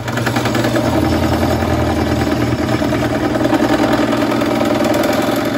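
Benchtop drill press motor running under load, drilling out the centre hole of a steel hole-saw seal driver; a steady hum with a rough, chattering cutting noise, cutting off sharply near the end.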